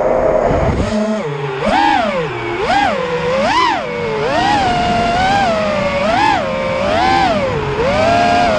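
FPV quadcopter's brushless motors whining, the pitch swooping up and down about once a second as the throttle is blipped and eased.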